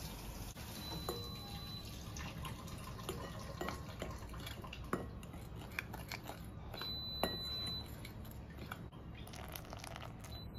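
Metal spoon stirring dry flour and salt in a glass mixing bowl, with scattered light clinks and taps of the spoon against the glass. Near the end, hot water starts trickling into the flour.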